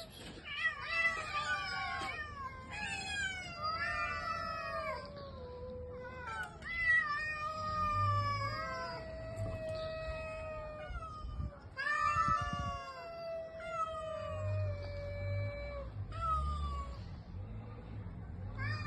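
Cats meowing and yowling in long, drawn-out calls that bend in pitch, one after another and at times overlapping.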